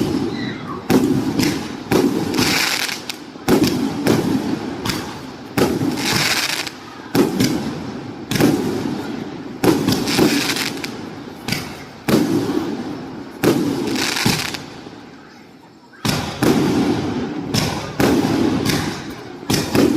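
568-shot consumer firework cake firing in quick succession: a launch bang about once a second, each followed by a fading boom, with crackling after several of the shells burst. There is a short lull about fifteen seconds in before the shots resume.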